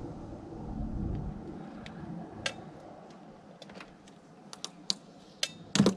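Hands working a carbon fiber fender trim piece against a car's painted panel: a low rubbing and handling noise at first, then a run of sharp clicks and taps that comes faster, with the loudest click near the end.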